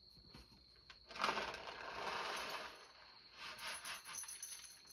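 Rustling and scraping from something being handled, in two stretches: one starting about a second in and lasting nearly two seconds, a shorter one near the end.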